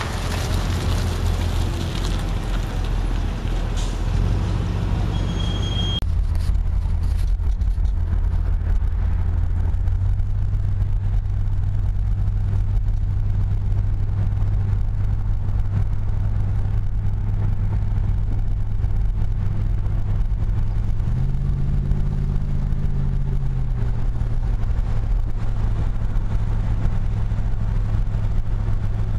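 1966 Dodge Charger's rebuilt 383 Super Commando big-block V8 with a four-barrel carburettor, heard first from outside as the car drives past, then from inside the cabin as a steady low drone while cruising. A little over twenty seconds in the engine pitch rises briefly, then settles back.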